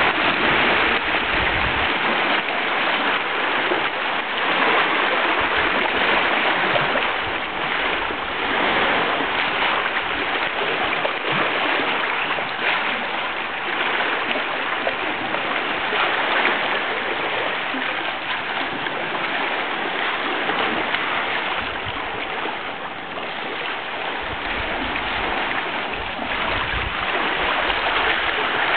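Sea water washing over the rocks and pebbles at the edge of a small cove: a steady rushing noise that swells and eases a little.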